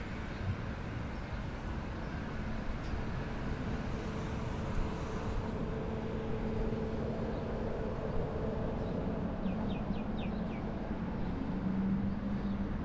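City street traffic: a steady rumble of road traffic with the hum of passing vehicle engines, one growing louder near the end. About ten seconds in, a quick run of four or five short high chirps.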